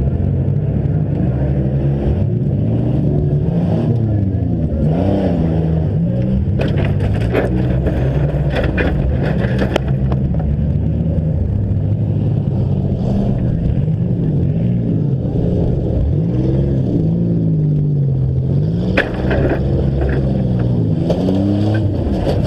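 Several demolition derby engines revving up and down together, with sharp knocks and bangs of vehicles striking one another, clustered about seven to ten seconds in and again near the end.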